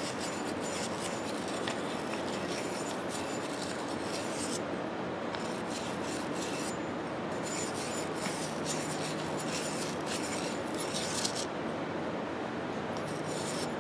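Small brass wire brush scrubbing the steel inside of an old 3/8" ratchet, a steady scratchy rubbing that pauses briefly a few times.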